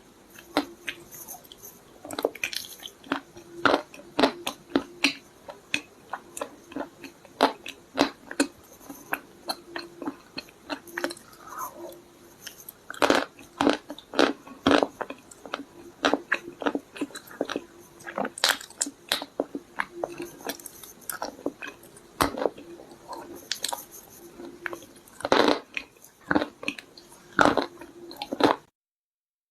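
Close-miked biting and chewing of hard clay stones with paste: a dense, irregular run of crisp crunches that stops abruptly near the end.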